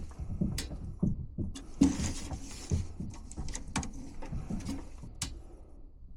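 Irregular rustling, scraping and light clicks from handling tools and wiring, with a few sharper clicks along the way.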